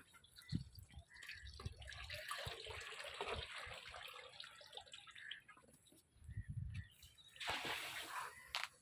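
Liquid trickling and splashing, with a second, louder splash near the end.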